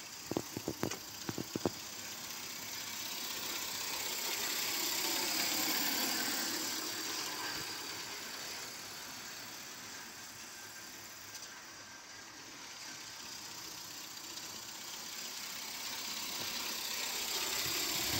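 Accucraft Bagnall 7/8ths-scale live-steam locomotive running on the garden railway track: a steady, noisy running sound that swells, dips in the middle and swells again as the engine comes nearer. A few sharp clicks in the first couple of seconds.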